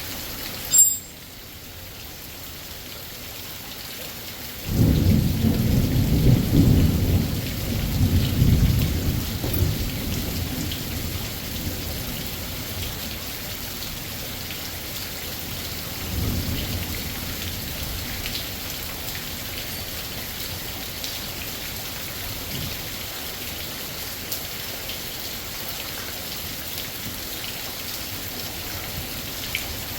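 Heavy rain pouring down steadily while thunder rolls: a long, loud low rumble starts about five seconds in and fades over several seconds, and a second, weaker rumble comes around sixteen seconds. A single sharp click sounds about a second in.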